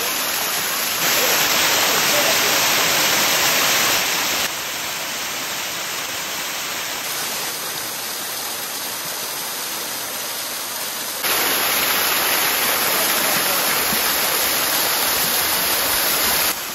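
Waterfall: a steady rush of falling water, its loudness stepping abruptly up and down three times.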